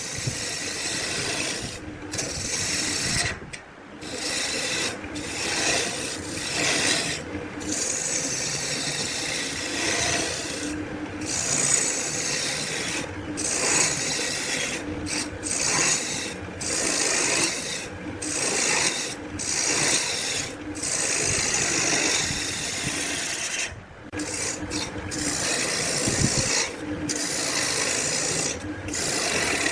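A hand tool rasping wood in repeated long strokes, each lasting a second or two with brief pauses between them.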